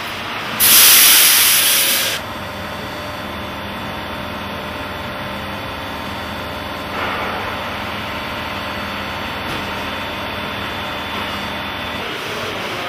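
Turbo ring inspection machine running with a steady mechanical hum carrying a few fixed tones. A loud air hiss lasts about a second and a half near the start, and a shorter, softer one comes about seven seconds in.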